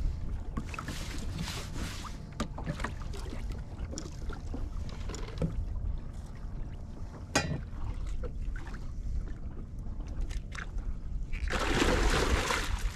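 Wind rumbling on the action camera's microphone over water moving against a fishing kayak, with scattered small clicks and knocks of gear on the boat. There is one sharper knock about seven seconds in, and a louder rush of noise lasting about a second near the end.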